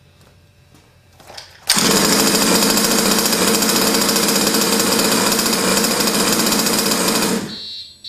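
A 1/5-scale RC car's small two-stroke gasoline engine starts about a second and a half in, runs steadily, then cuts out near the end when the remote kill switch kills the ignition. A high-pitched buzzer then starts, signalling that the engine is killed.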